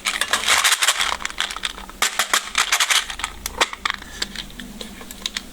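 Packaging being opened by hand: crinkling and rustling with many sharp clicks and snaps, busiest in the first three seconds and thinning toward the end.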